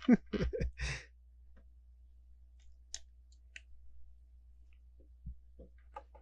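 A brief sigh-like breath and short vocal sounds in the first second. Then faint, scattered clicks and taps of plastic Lego pieces being handled and pressed together.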